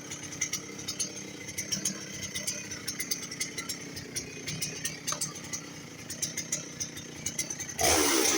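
2003 Dolmar PS-6400 two-stroke chainsaw idling with a rattly, clicking running note, then revved up hard near the end, its pitch climbing.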